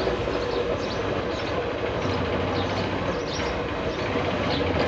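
Steady rumbling noise on a handheld phone microphone carried along a street at walking pace: wind and handling noise.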